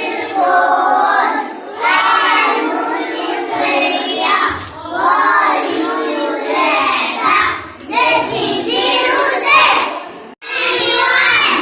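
A group of young children singing a nursery song together, with music, briefly breaking off about ten seconds in.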